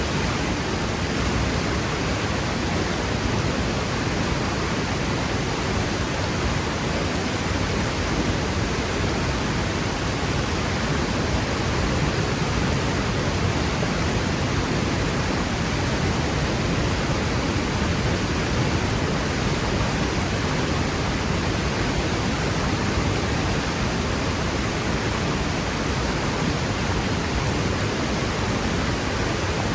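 Waterfall crashing over rock cliffs: a steady roar of rushing water, even and unbroken throughout, with a deep rumble under the hiss.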